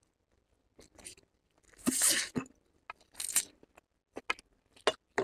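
Close-up eating sounds: chow mein noodles being slurped into the mouth in a few short noisy bursts, the longest about two seconds in, followed by quick wet chewing clicks near the end.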